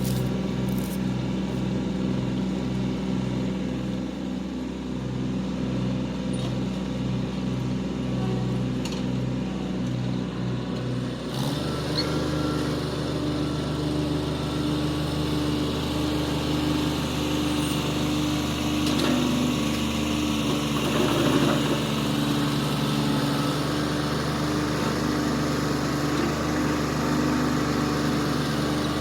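Tractor engine running steadily with a PTO-driven flail mower, a slow regular pulsing in its note at first. About eleven seconds in the sound changes abruptly to a different, steadier hum.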